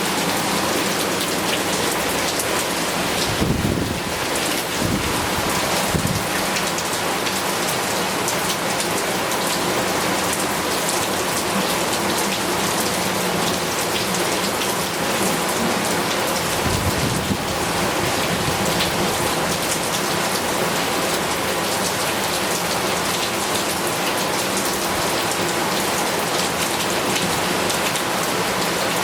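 Heavy rain falling steadily on surfaces, a dense even hiss. Low rumbles of distant thunder come in a few seconds in and again past the middle.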